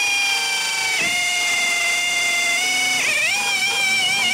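Power drill with a quarter-inch bit drilling a bolt hole through a fiberglass body panel: a steady motor whine that drops in pitch about a second in as the bit takes load, then rises again near the end.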